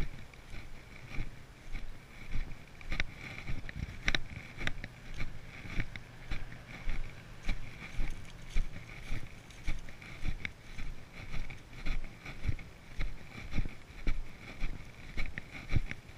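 Footsteps of a person walking at a steady pace over grass and pine-needle litter, about two steps a second, heard as dull thuds through a chest-mounted action camera. A faint steady high hum runs underneath.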